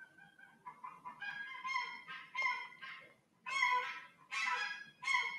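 Geese honking: a series of about seven short honks with brief gaps between them, the loudest a little past the middle.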